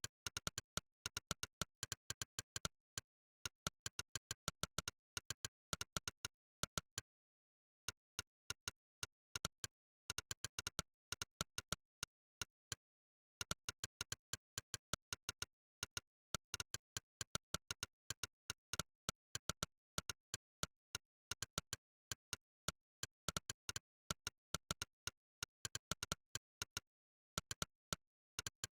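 Monkeytype's 'click' keypress sound effect: a sharp synthetic click for each keystroke, several a second in fast runs of typing with dead silence between clicks. The runs break off in short pauses, the longest about two and a half seconds, roughly a third of the way in.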